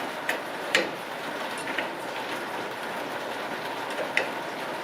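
A few short, sharp metallic clicks and taps as handbrake shoe parts and springs are handled and fitted, the loudest about a second in, over a steady background hiss.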